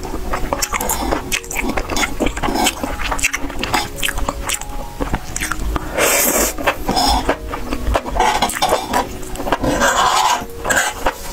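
Close-up eating sounds: wet chewing and slurping of saucy, noodle-like strands, with a metal fork clicking and scraping on a metal tray. Louder slurps come about six seconds in and again around ten seconds.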